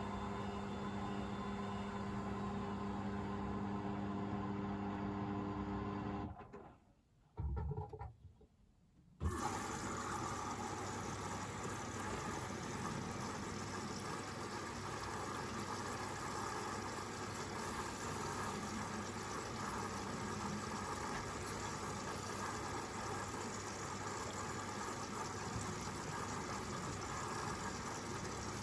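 Hoover VisionDynamic washing machine in its second rinse: the drum motor runs with a steady hum, stops for about three seconds with a single knock, then starts again with a noisier rushing sound of the drum tumbling the wet load.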